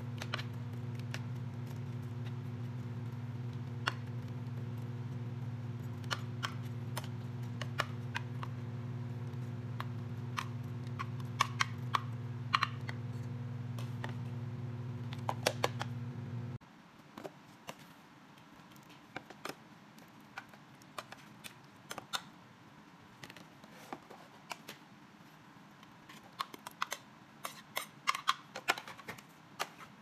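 A metal spoon clinks and scrapes against a plastic microwave cooking box as sliced onions are stirred in sauce, over a steady low hum. The hum stops suddenly about halfway through, and fainter clicks and taps go on as the box's lid goes on and the cooked onions and chicken thigh in it are stirred.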